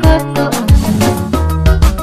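Upbeat music with a steady drum beat and bass line.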